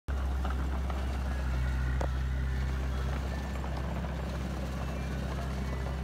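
Small crawler bulldozer's diesel engine running steadily as it pushes soil, with a single knock about two seconds in.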